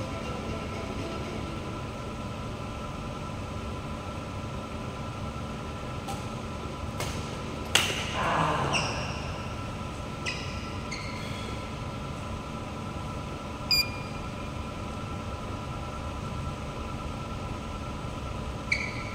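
Steady hum of an indoor sports hall's air handling, with a few sharp racket-on-shuttlecock hits, the loudest about eight seconds in, and short squeaks of shoes on the court mat.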